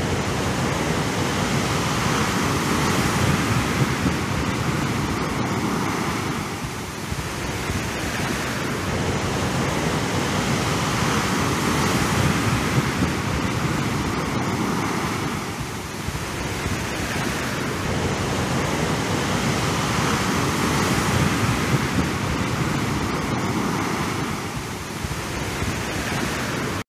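Sea waves breaking as a steady surf rush that swells and eases, with the same stretch repeating about every nine seconds.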